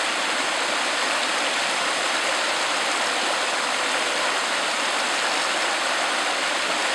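Small creek cascading over rocks, a steady, even rush of water.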